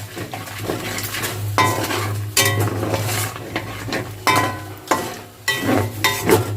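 Whole spices being stirred in hot oil and ghee in a kadai, the spoon scraping and clanking against the pan with short ringing knocks every half second or so, over a light sizzle.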